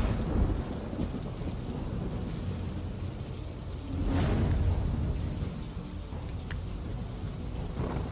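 Rain with rolling thunder: a steady rumbling wash of noise, with a louder crack of thunder about four seconds in that rolls away over a couple of seconds.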